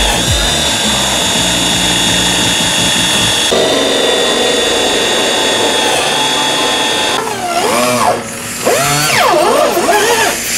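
Cordless drill cutting a hole through a carbon fiber hood, its motor whining steadily, then stopping about seven seconds in. Background music plays underneath.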